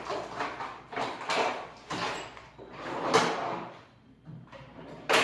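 Metal hand tools being handled: a run of short scraping and clattering noises, about seven in a few seconds, the loudest a little past the middle.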